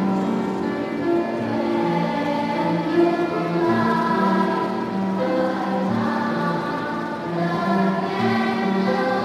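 A choir singing in parts, with several voices holding long notes together.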